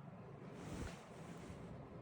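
Near quiet: faint room tone with a soft, breathy hiss from about half a second to a little over a second in.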